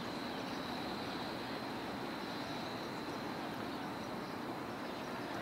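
Steady outdoor background hiss and hum with a faint constant high whine, no distinct events.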